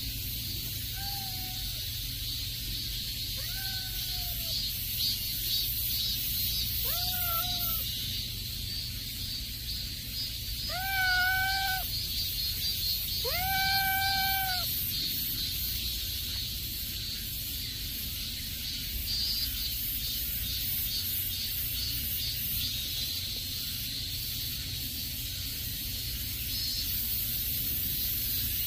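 Domestic cat meowing about five times, short calls, the two in the middle longer and louder than the rest.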